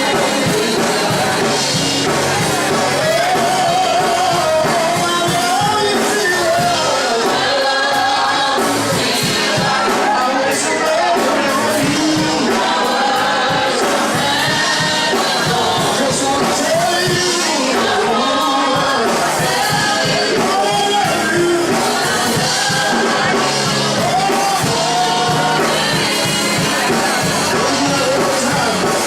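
Gospel music: voices singing over instrumental accompaniment at a steady level.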